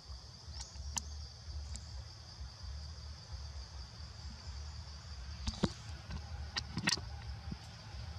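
Steady high-pitched insect drone from the forest, over a low rumble, with a few sharp clicks, most of them bunched past the middle.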